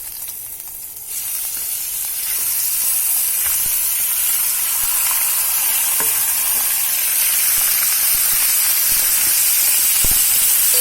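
Marinated chicken pieces sizzling in hot cooking oil in a pan. The sizzle starts loud, builds over the first two seconds and then holds steady, with a few faint clicks.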